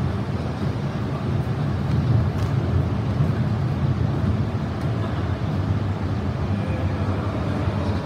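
Steady low rumble and hum of a stationary E6 series Shinkansen train standing at the platform, with its onboard equipment running.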